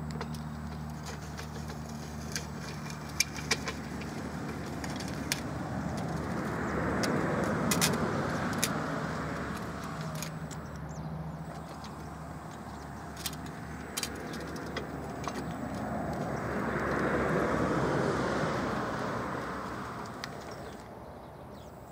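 Road traffic: two vehicles pass one after the other, each swelling and fading, the first about eight seconds in and the second about eighteen seconds in, over a steady low hum. Scattered sharp clicks run through it.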